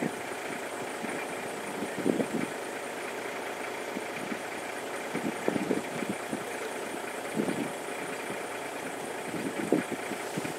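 A safari vehicle's engine idling steadily, with a few short dull thumps scattered through.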